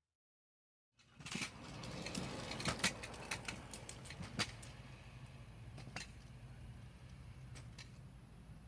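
Silence for about a second, then two kick scooters rolling on a concrete path with sharp clicks and rattles. The clicks come thick at first and thin out as the scooters move away, over a steady low hum.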